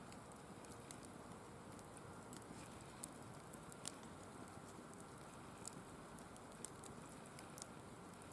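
Firewood burning in a mesh fire pit: a faint steady hiss with scattered sharp crackles and pops, the loudest about four seconds in.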